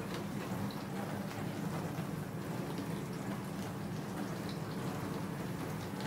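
Bosch dishwasher running mid-cycle: a steady low hum from its pump with water spraying and splashing inside the closed tub.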